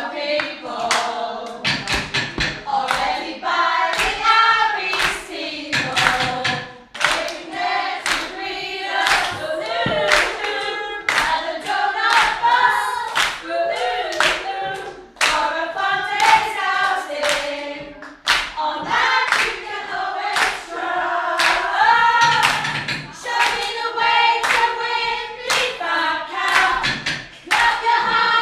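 A group of women singing together, with hands clapping along throughout in a fairly regular beat.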